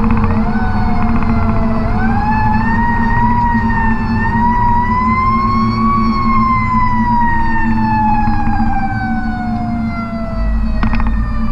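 Fire truck siren winding up in slow, uneven steps to a peak and then sliding steadily down over about five seconds. Underneath is the steady drone of the ladder truck's Caterpillar C12 diesel and the road, heard from inside the cab.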